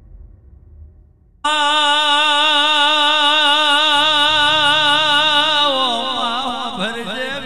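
Male folk singer's aalap, the opening of a Gujarati regdi. About a second and a half in, a loud, long held high note with wide vibrato starts suddenly. Near the end it breaks into quick ornamented turns, over a low steady accompaniment that comes in about four seconds in.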